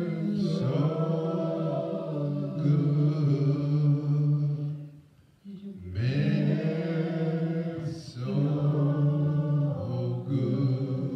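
A man singing a slow gospel song of thanks into a microphone, unaccompanied, drawing out long held notes, with a short pause for breath about five seconds in.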